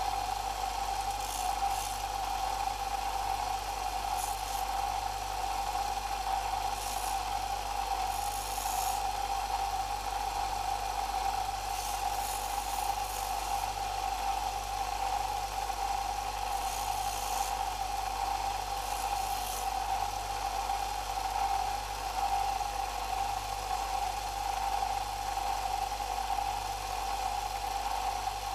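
Bench belt sander motor running steadily, with short scratchy spells of sanding every few seconds as a wooden lollipop stick is pressed against the belt.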